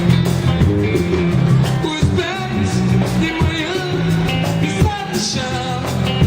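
Live band playing a slow reggae song, with a steady bass line and regular drum hits.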